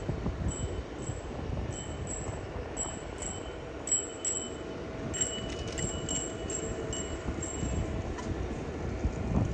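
Outdoor ambience: a steady low rumble with a string of short, high-pitched chirps, a few per second, through the middle.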